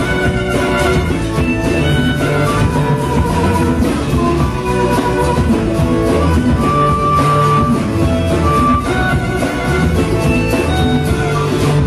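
Live band playing: an amplified harmonica plays held notes over guitars, percussion and drum kit.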